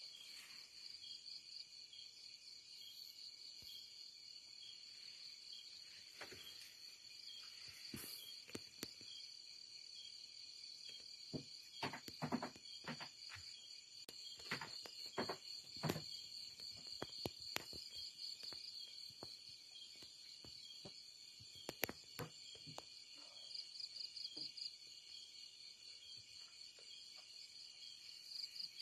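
Night insect chorus, a steady high pulsing trill of crickets, with a scatter of sharp snaps and cracks through the middle.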